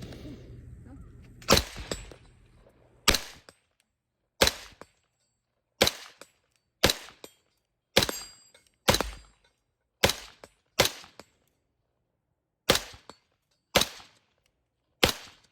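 Rifle fired twelve times in a steady string of sharp reports about a second apart, with a slightly longer pause past the middle.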